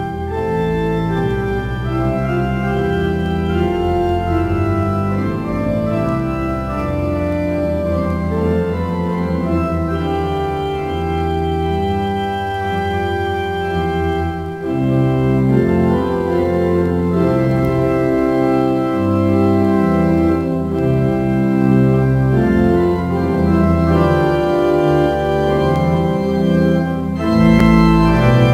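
The Eton College Chapel pipe organ playing loud, sustained chords over deep pedal bass notes, the harmony shifting every second or so. About halfway through it breaks off briefly and comes back fuller.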